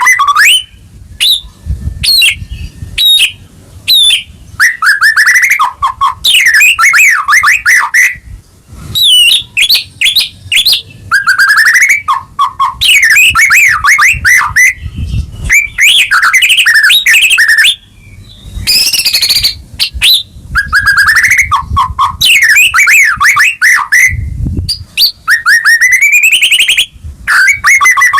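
White-rumped shama (murai batu) singing a loud, energetic song: phrases of a second or two made of rapid rising and falling whistled notes and trills, separated by short pauses. This is a lure recording of a shama in full song.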